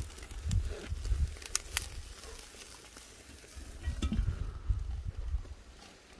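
Pork neck sizzling over an oak-charcoal grill, with a few sharp clicks and uneven low bumps.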